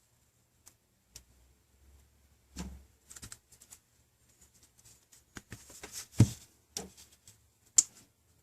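Light, scattered clicks and taps of hands handling a tablet and its replacement touch-screen glass, with two sharper clicks about six seconds in and near the end.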